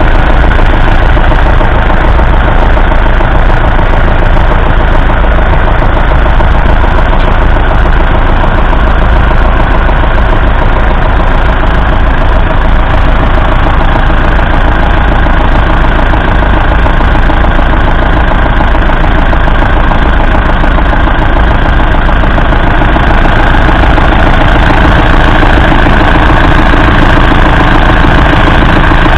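David Brown 996's 3.6-litre four-cylinder diesel engine idling steadily, loud and close up.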